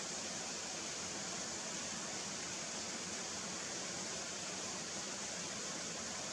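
Steady rushing of a waterfall, an even hiss that does not change.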